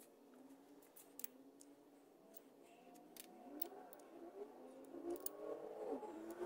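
Faint light clicks and taps of a steel 1-2-3 block and a flat steel bar being set on a locating puck clamped in a milling vise. Faint wavering, gliding tones sound underneath and grow louder toward the end.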